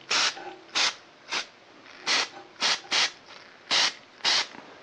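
Aerosol can of solvent sprayed in eight short hissing bursts, each about a fifth of a second long, with brief pauses between.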